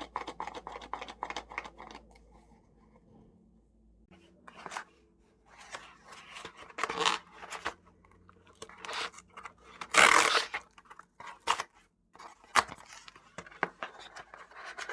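Cardboard subscription box and its packaging being opened by hand: scattered snips, tearing and rustling in short bursts, with one louder tearing burst about ten seconds in.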